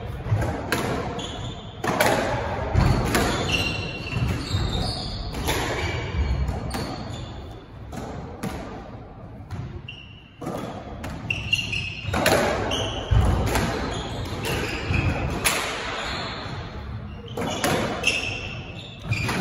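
Squash rally: the rubber ball cracked by rackets and smacking off the walls and wooden floor, about one hit a second, each echoing round the court, with a short lull about halfway. Short high squeaks of court shoes on the wooden floor come between the shots.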